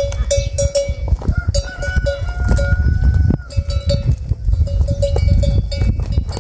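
A neck bell on a walking water buffalo clanking in a steady rhythm, about three to four strikes a second, with a pause of about a second near the middle, over a low rumble.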